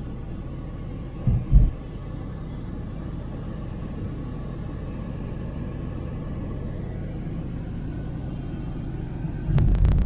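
Steady road and engine rumble inside a moving car, with two short low thumps about a second and a half in and another near the end.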